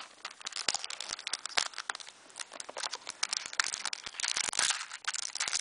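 Hands opening the plastic packaging of a new Mintia mint case: a run of sharp plastic crinkles and clicks, busiest in the second half.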